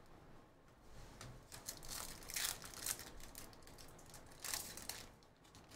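A baseball card pack's foil wrapper being torn open by hand and crinkling, in a run of rustling bursts through the middle and a shorter burst near the end.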